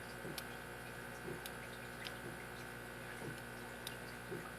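A few faint, scattered ticks and light scrapes of a lock pick working the pins of a brass padlock under tension, over a steady low hum.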